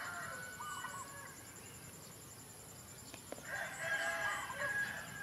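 A rooster crowing twice: the end of one long crow about a second in, and a second long crow from about three and a half seconds in.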